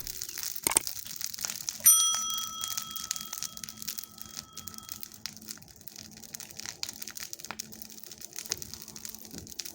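Bonfire of garden waste crackling and popping. About two seconds in, a single sharp strike sets off a clear bell-like ring that fades over about three seconds.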